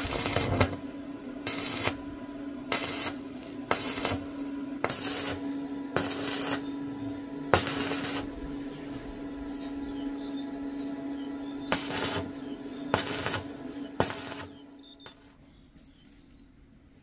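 Stick (arc) welding on iron bars: the arc crackles and sizzles in repeated bursts about once a second over a steady hum, then stops near the end.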